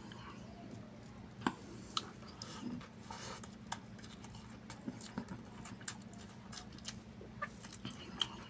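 Close-miked mukbang eating of chicken biryani by hand: chewing and mouth smacks, with scattered small clicks as fingers gather the rice, over a steady low hum.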